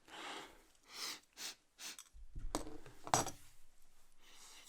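A man's sharp sniffs and ragged breaths through a nose burning from ground black pepper, with a couple of short voiced gasps, the loudest about three seconds in, as he strains to bring on a sneeze.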